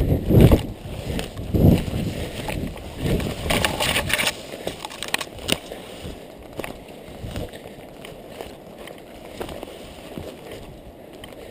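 Running footsteps pushing through dense undergrowth: heavy thuds of strides, with brush swishing and twigs crackling underfoot. The thuds are loudest in the first couple of seconds, a burst of crackling rustle follows, and from about halfway it settles into lighter steps and rustling.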